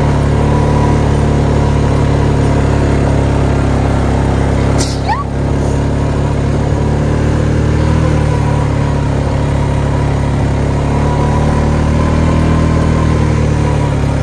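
Four-wheeler (ATV) engine running at a steady speed while it is ridden across a grass pasture. A brief sweeping squeak comes about five seconds in.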